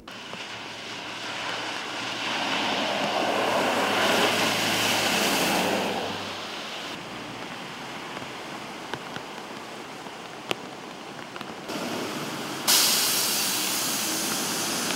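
Traffic on rain-flooded streets: a steady hiss of tyres and spray as vehicles drive through standing water, swelling for a few seconds and changing abruptly a couple of times, louder and brighter near the end. One sharp click about ten and a half seconds in.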